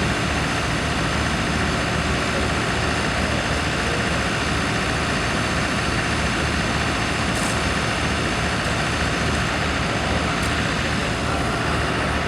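Engine of a compact construction machine (skid steer or mini excavator) running steadily, with a low throbbing rumble.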